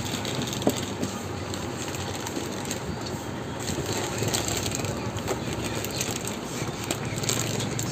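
Steady outdoor background noise, an even hiss with no clear single source.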